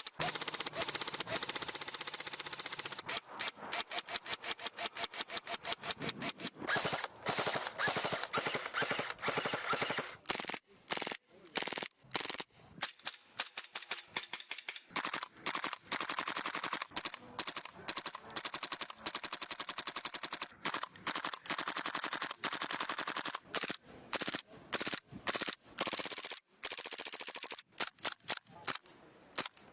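Airsoft guns firing in rapid automatic bursts: long strings of sharp, evenly spaced shots, broken by short pauses and a few single shots.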